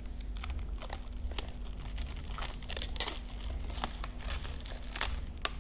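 Clear plastic wrapping crinkling and tearing in irregular crackles as it is pulled off a new LED motorcycle tail light unit.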